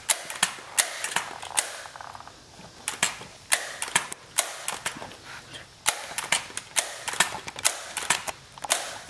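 Multi-pump air gun being pumped by hand: a quick series of sharp clacks from the pump lever, some followed by a short rush of air, as the gun's air chamber is charged before a shot.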